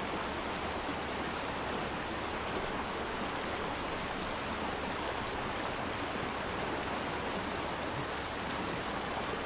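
Mountain stream running fast over rocks, a steady rushing of water that stays even throughout.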